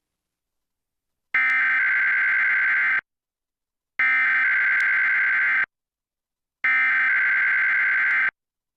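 Emergency Alert System SAME header: three identical bursts of buzzy digital data tones, each about a second and a half long with about a second between them, starting about a second in. The bursts carry the coded alert message that opens an EAS test.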